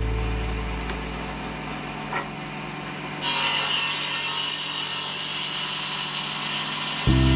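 A tool scraping and rubbing on wood in a steady, noisy stroke that gets louder and brighter about three seconds in.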